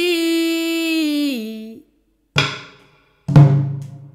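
A sung voice holds a long note with a dip and rise in pitch, then slides down and stops a little under two seconds in. Two deep drum strokes follow about a second apart, the second louder, each dying away.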